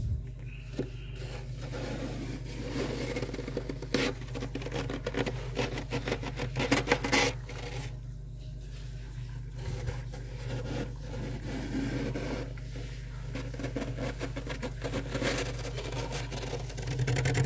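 Bare hand scraping and scooping thick frost off the walls of a freezer compartment: continuous scratchy rubbing of the frost, with louder scrapes about four and seven seconds in. A steady low hum runs underneath.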